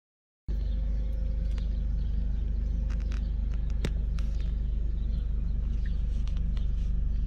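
Car driving, heard inside the cabin: steady low engine and road rumble, with scattered sharp clicks. It starts abruptly about half a second in.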